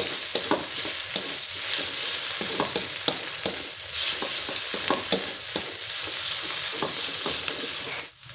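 Shrimp, scrambled egg and spring onion stir-frying in hot oil: a steady sizzling hiss with a spatula scraping and stirring through the pan every half second or so. The sound cuts off suddenly just before the end.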